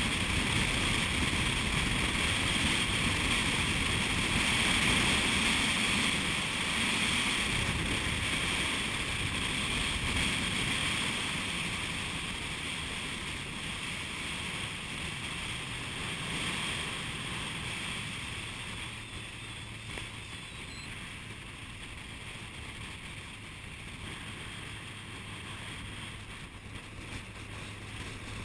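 Wind buffeting the microphone and water rushing past the hull of a small motorboat under way, growing quieter in the second half as the boat eases off; a low steady engine hum comes through near the end.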